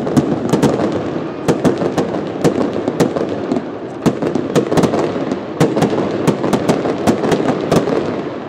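Fireworks display: shells bursting overhead in a rapid, irregular string of sharp bangs, several a second, over a continuous rumble of echoing reports. The bangs thin out near the end.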